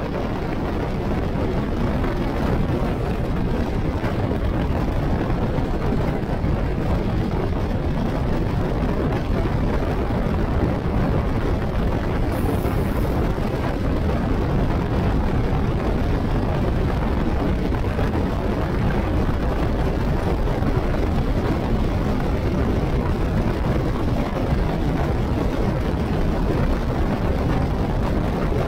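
Steady rush of wind and road noise from a motorcycle cruising at highway speed, about 85–90 km/h, with no clear engine note standing out.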